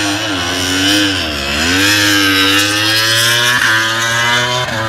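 2009 MotoGP racing motorcycle, an 800cc four-stroke, running at high revs. Its pitch dips about a second in as it slows, then climbs steadily as it accelerates, with brief breaks near the end as it shifts up through the gears.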